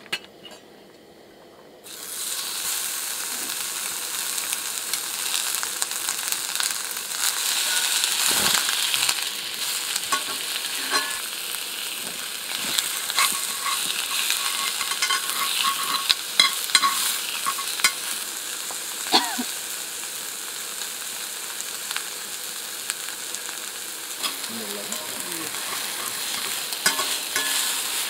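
Marbled beef sizzling in a hot Lodge 8-inch cast iron skillet; the sizzle starts suddenly about two seconds in as the meat goes into the pan. Metal tongs click against the pan now and then.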